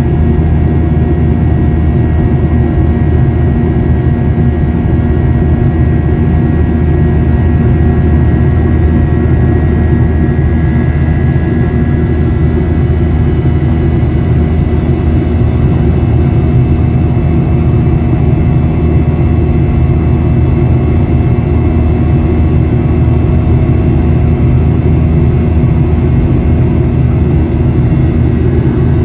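Cabin noise inside a Boeing 737-800 in flight: its CFM56-7B turbofan engines and the airflow make a steady low roar, with faint steady whining tones above it.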